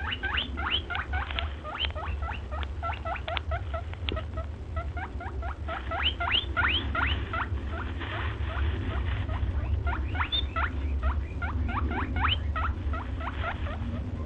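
Small animals squeaking: a dense run of quick, high-pitched squeaks, several a second, over a steady low rumble.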